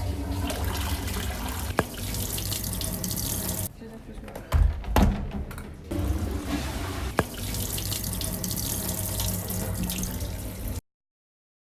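Running water, a steady rush that stops briefly about four seconds in, with a few heavy knocks, then runs again before cutting off abruptly near the end.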